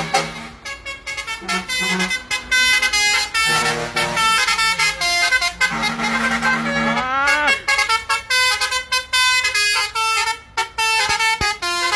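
Truck air horns of passing HOWO dump trucks blaring in a quick run of changing notes, some notes sliding up in pitch as they sound, with short breaks near the end.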